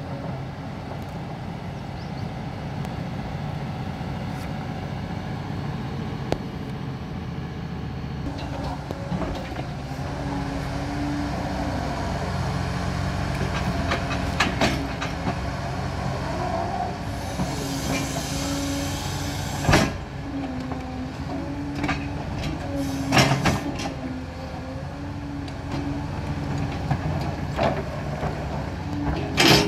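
Liebherr 946 crawler excavator working: its diesel engine runs steadily with a hydraulic whine that shifts in pitch as the boom and bucket move. Several sharp knocks and clatters of brick rubble as the bucket digs, the loudest about 20 seconds in and just before the end.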